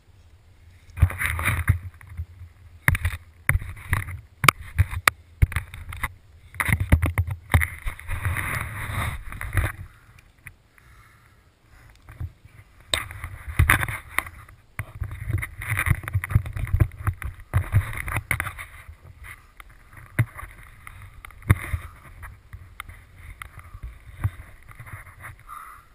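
Gusts of wind buffeting a helmet-mounted camera in irregular bursts, mixed with rustling of wingsuit nylon and sharp knocks and scrapes as hands and suit move against the rock. It eases off for a couple of seconds about ten seconds in.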